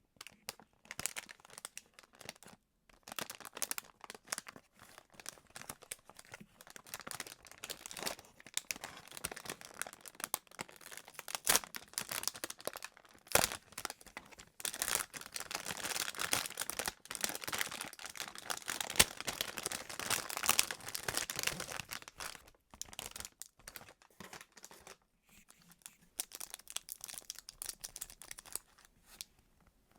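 Squishy squeeze toys squeezed and handled close to the microphone: a dense, irregular crinkling and crackling, busiest and loudest in the middle, with a few short pauses.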